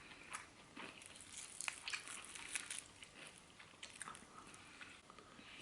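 Faint crunching and chewing as a person bites into a crispy-coated air-fried chicken wing, a scatter of small crackles throughout; the coating has a light crunch.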